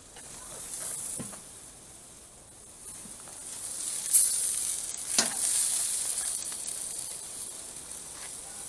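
Steaks sizzling on a hot charcoal grill, a steady hiss that swells from about three seconds in, with a few sharp pops and crackles around four and five seconds.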